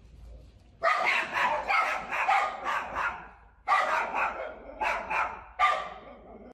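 A dog barking in quick runs of sharp barks, starting about a second in, with a brief pause around the middle.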